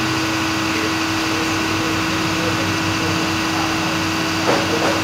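Steady mechanical drone of a running machine or engine, with a constant hum and a brief knock about four and a half seconds in.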